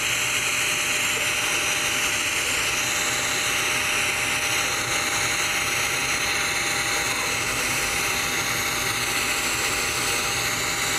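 TIG welding arc running steadily during a hot pass on a steel pipe joint, a constant hiss with a faint steady hum.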